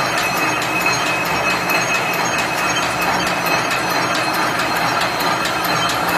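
Barbed-wire making machine for single-strand corrugated barbed wire running steadily. It gives a continuous mechanical clatter with even clicks about four a second over a steady high whine.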